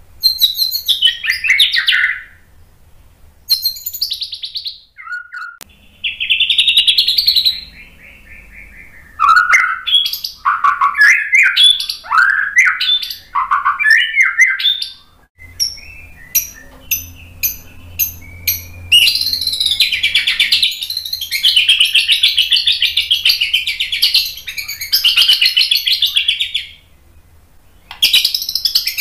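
White-rumped shama singing its varied, mimicry-filled song in separate loud phrases of whistled, slurred notes. About halfway through comes a run of sharp ticks, two or three a second, then a long, fast, dense warble.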